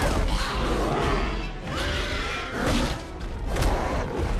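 Monster-movie fight soundtrack: dramatic music mixed with a giant ape's and a tyrannosaur's roars, a heavy low rumble, and thuds and crashes as they grapple, with a sharp impact near the end.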